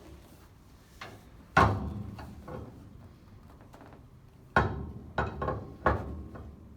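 Sharp clunks from a chiropractic treatment table as it is set for a patient lying on her back: a loud knock about a second and a half in that rings out briefly, then a quick run of four knocks near the end.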